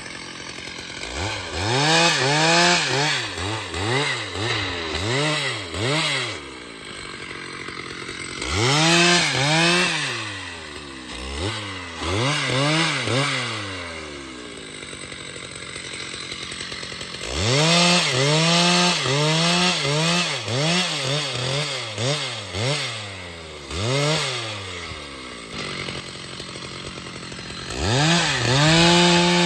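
Chainsaw engine revved again and again, its pitch rising and falling about once or twice a second, in four runs with lower, steadier running between them.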